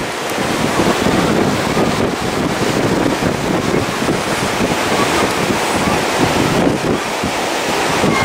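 Wind buffeting the microphone with a steady, uneven rumble, over the wash of ocean surf.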